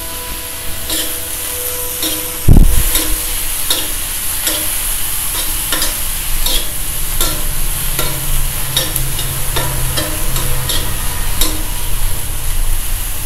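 Chopped onion, tomato, capsicum and garlic sizzling in butter on an iron tawa, with a metal spatula scraping and tapping against the pan every half second or so as the vegetables are stirred. One loud knock about two and a half seconds in.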